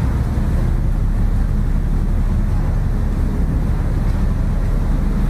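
Steady wind buffeting the microphone over an even low rumble from a container ship under way at sea.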